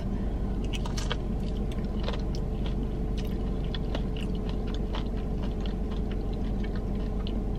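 A person chewing a mouthful of crispy fried chicken close to the microphone, with scattered small crunching and wet mouth clicks over a steady low hum.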